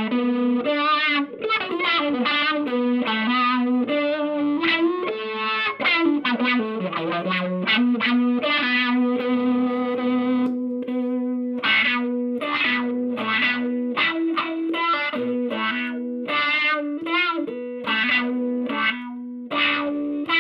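A stringed instrument played through a handmade Katanasound distortion pedal: a line of single, sustained, heavily distorted notes, some bent and wavering in pitch.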